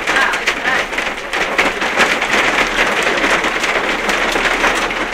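Hailstorm: hailstones and heavy rain pelting down on hard surfaces, a loud, steady, dense patter of many small impacts.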